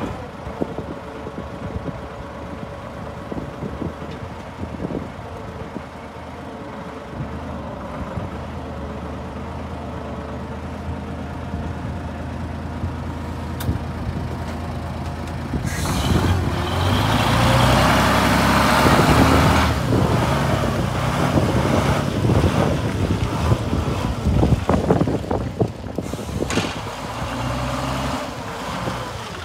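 Forklift truck's engine running steadily. Just past halfway a loud rushing, hissing noise comes in over it and lasts about ten seconds.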